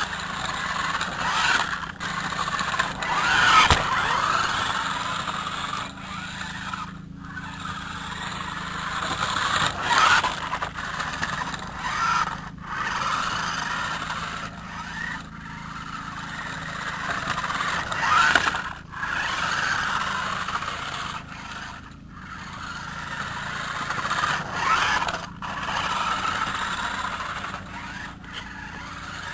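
Cheap toy RC car's small electric motor and gears whirring as it drives, running on an enlarged battery pack for more speed. The sound rises and falls with the throttle and breaks off briefly several times.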